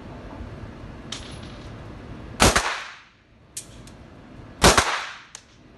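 9 mm Luger pistol firing two shots about two seconds apart, each followed by a short echo in the indoor range. A few fainter sharp clicks fall between and after the shots.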